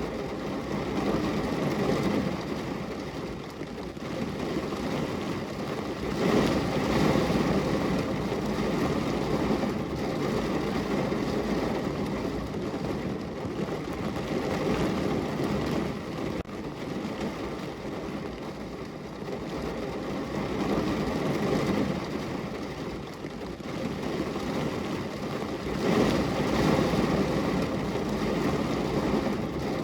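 Heavy rain falling on a car's roof and windows, heard from inside the car as a dense, steady patter, swelling louder about six seconds in and again near the end.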